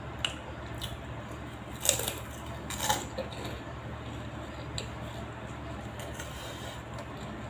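Mouth-sounds of eating a krupuk cracker dipped in sauce: bites and chewing crunches close to the microphone. A handful of short crunches, most of them in the first three seconds, then quieter chewing.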